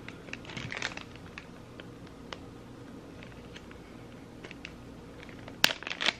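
Small clear plastic bag crinkling with faint ticks as fingers work it open, with one sharper click a little before the end.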